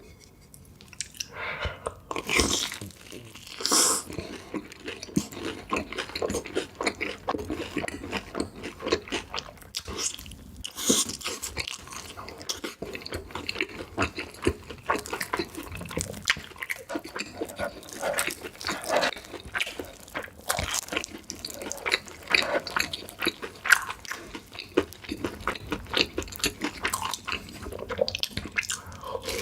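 Close-miked eating: crunchy food bitten and chewed, with many irregular sharp crunches and wet chewing running on after a brief quiet start.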